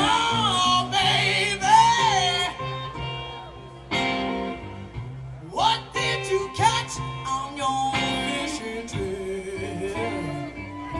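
Background music: a song with a singer over guitar.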